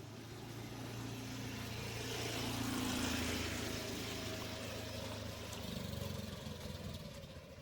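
A motor vehicle passing by: its engine hum and road noise grow louder to a peak about three seconds in, then fade away.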